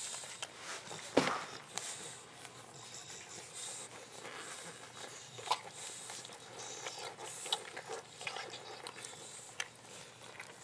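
Young boxer puppies nursing from their mother, with small suckling and smacking clicks and bedding rustling as they shift. A louder sharp sound comes about a second in.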